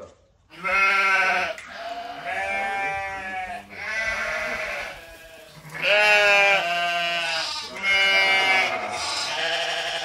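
Dog whining and howling in a run of drawn-out, wavering calls, about one a second.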